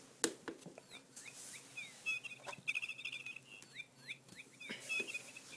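Electronic bird chirps and fast trills from a cat's feathered toy bird, with a few sharp knocks in between.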